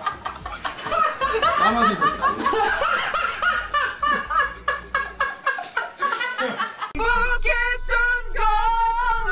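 Young men laughing hard in quick bursts of cackling. About seven seconds in it cuts to a man singing loudly in long held notes.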